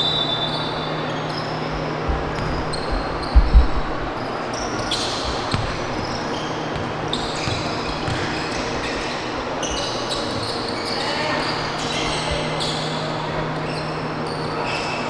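Live basketball play on a hardwood gym court: the ball bouncing, sneakers squeaking in short high chirps, and players' voices, over a steady hum in the hall. The loudest sounds are a couple of heavy thumps about three and a half seconds in.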